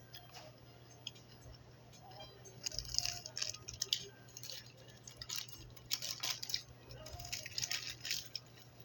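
Crinkling and crackling of plastic food packaging being handled, in irregular bursts, over a low steady hum.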